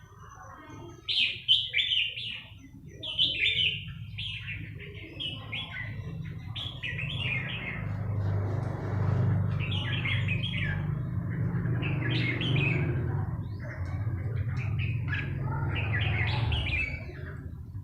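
Small birds chirping in short repeated phrases, one after another, over a steady low rumble that builds up about a quarter of the way in.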